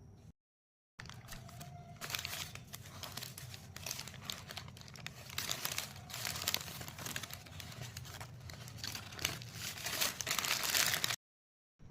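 Food wrapper being crinkled and torn open in a dense, continuous run of crackles, with two short cuts to dead silence, one just after the start and one near the end.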